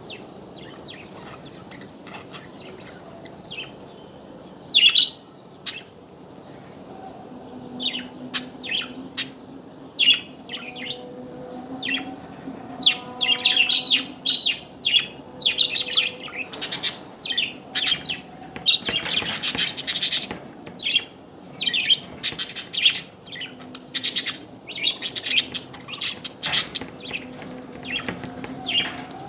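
Small birds chirping: short, sharp, high-pitched calls, scattered at first and then coming thick and fast from about halfway through.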